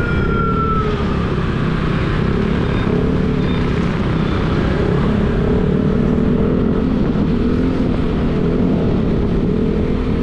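Yamaha NMAX scooter's single-cylinder engine and GP2 Villain aftermarket exhaust running while riding in traffic at a fairly steady speed, its pitch wavering gently with the throttle, over wind and road noise. The rider complains that this muffler has started to rattle like a tin can.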